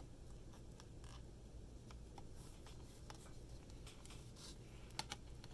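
Faint handling of a Blu-ray steelbook case: light rubbing and scratching with scattered small clicks, two of them sharper about five seconds in.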